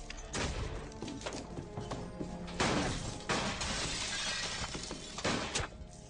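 Several sudden crashes of shattering glass, heard over a film music score.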